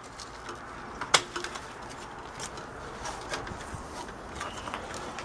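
Plastic wire connectors and cables being unplugged and handled on a CRT television's circuit board: one sharp click about a second in, then scattered lighter clicks and rattles.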